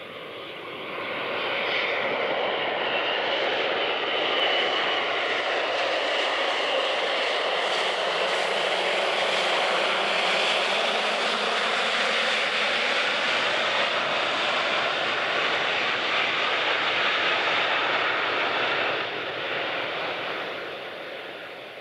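Boeing 737-400 airliner's CFM56 turbofan engines running as it rolls out along the runway just after touchdown. The engine noise swells about two seconds in, holds loud and steady, then fades near the end.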